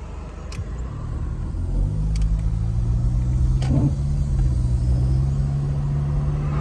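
Car engine and road noise growing louder about two seconds in as the car gets under way, then holding a steady low drone, with a few faint clicks.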